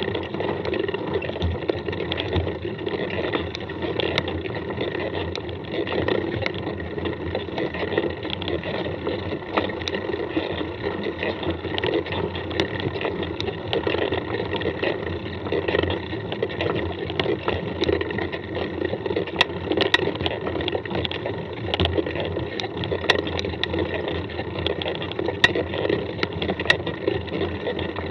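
Wind buffeting the camera microphone and tyre noise from a mountain bike being ridden along a dirt track, a steady rushing noise with frequent sharp clicks and knocks from the bike over the bumps.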